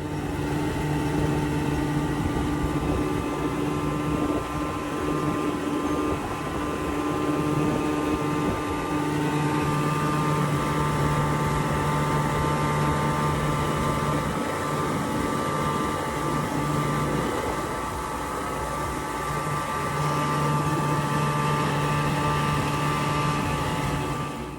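Small fishing boat's outboard motor running steadily under way, its engine tone dropping out briefly a few times, over a constant rushing noise.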